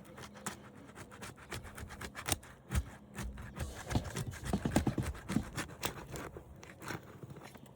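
Asphalt shingles being worked loose by hand tools: scattered scraping, creaking and sharp clicks, with a denser run of knocks about four to five seconds in.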